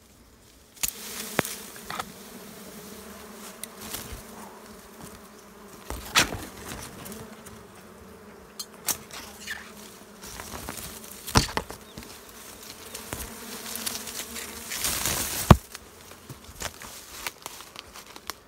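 Swarm of Asian honeybees buzzing in a steady drone around their comb as it is cut from a branch. The drone is broken by sharp snips and snaps from shears and twigs, the loudest about fifteen seconds in.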